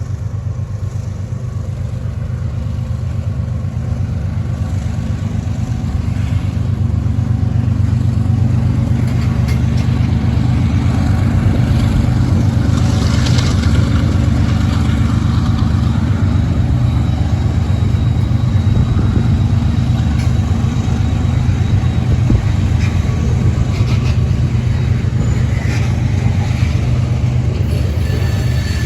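Freight train's diesel locomotives pulling under power: a steady low engine rumble that builds over the first ten seconds or so and then holds.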